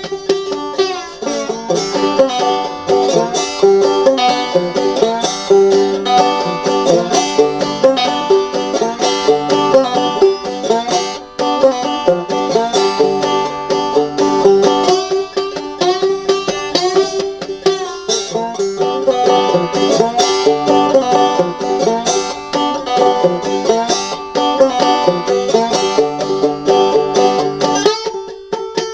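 Five-string banjo played clawhammer (frailing) style with a bottleneck slide, a blues tune: a steady brush-and-pluck rhythm over a repeating high drone note.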